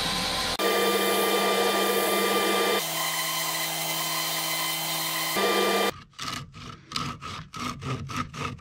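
Bandsaw running while resawing thin wood veneer, its steady hum and blade noise shifting abruptly in pitch a few times. About six seconds in, it gives way to a utility knife cutting a sheet of veneer in quick strokes, about four a second.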